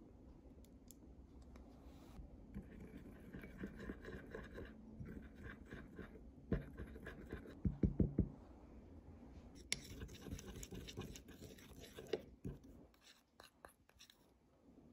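A metal spoon stirring thick sugar glaze in a glass bowl, scraping and clinking against the glass, with a cluster of sharp taps in the middle.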